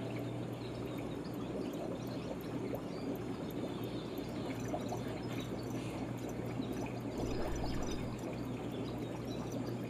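Steady trickle and pour of running water with a low hum underneath, the ambience of fish-tank filters running in an aquarium shop.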